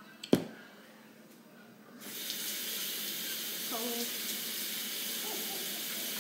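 A sharp knock just after the start, then a kitchen tap is turned on about two seconds in and water runs steadily into the sink for hand washing.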